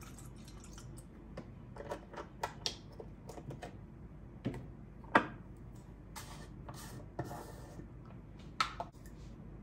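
Kitchen handling sounds: milk pouring into a stainless steel bowl at the start, then a series of irregular clicks and knocks as a milk carton and a glass jar with a plastic lid are set down and handled on a marble counter. One sharp knock about five seconds in is the loudest.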